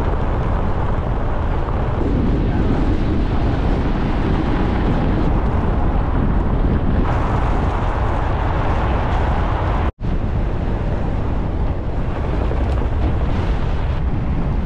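Wind rushing over a camera microphone mounted outside a moving car, with tyres rumbling on a gravel road. Steady throughout, cutting out briefly about ten seconds in.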